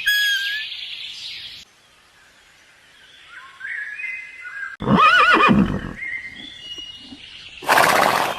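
Horse whinnying: a loud, wavering neigh of about a second, starting about five seconds in and dropping in pitch at its end. A short loud breathy burst follows near the end.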